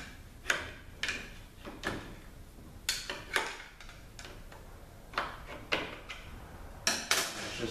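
Scattered metal clicks and knocks, about ten over several seconds, from tools and parts of a ZF 5HP24 automatic transmission being handled during teardown.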